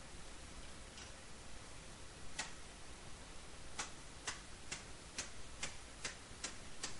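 A hammer striking a forge-hot 14-gauge mild steel plate laid over a wooden stump, doming it into a rounded fish body: sharp, light taps, a few widely spaced at first, then about two a second from around the middle.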